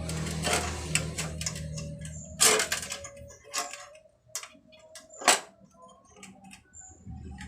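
Scattered sharp clicks and knocks, the two loudest about two and a half and five seconds in, over a low steady hum that stops about three and a half seconds in and comes back near the end.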